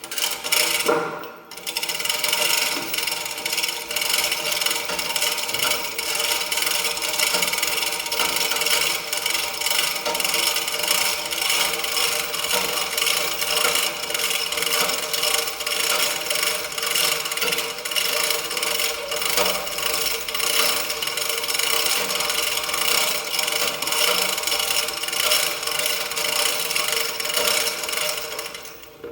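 A small machine running steadily with a fast, even clatter over a steady hum, starting and stopping abruptly.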